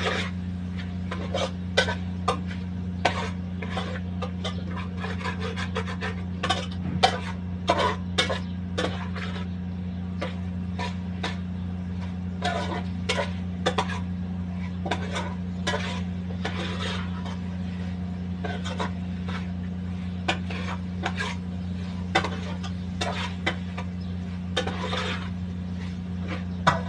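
Kitchen utensils knocking and scraping against pots and dishes, many short irregular clicks spread throughout, over a steady low machine hum.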